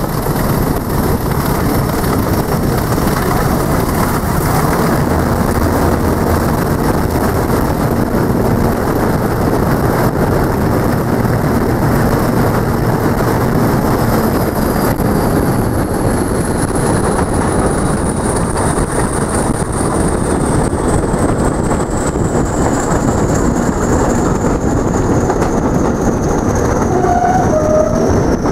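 A diesel-hauled train led by Class 40 locomotive D345 running through a tunnel, heard from an open coach window: a loud, steady running noise echoing off the tunnel walls. A thin high whistle falls slowly in pitch over the second half.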